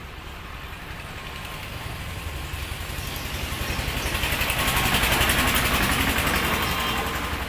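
A motor vehicle's engine passing close by, its running sound growing louder to a peak about five seconds in and then fading.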